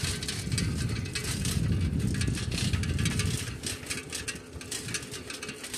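Bicycle ridden along a paved road: a rough rumble from wind and road, with the bicycle's parts rattling in quick, irregular clicks; it eases slightly near the end.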